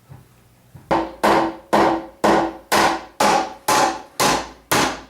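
Hammer blows on glued-up walnut tabletop boards, knocking them together before clamping: a steady series of sharp strikes, about two a second, starting about a second in, each with a short ringing tone.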